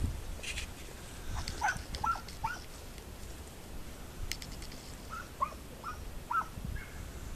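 Hunting dogs yelping, faint and far off across the scrub: a run of about four short, high yelps near two seconds in and another run of four between five and six and a half seconds.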